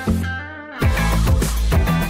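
Background music with guitar and a beat; it drops away briefly about half a second in, then comes back in with a heavy bass.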